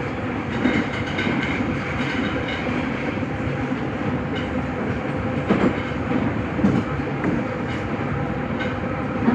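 Nagoya Municipal Subway Higashiyama Line 5050-series train running through a tunnel: steady wheel-on-rail running noise, with a few sharper clacks from the track, the loudest about five and a half seconds in.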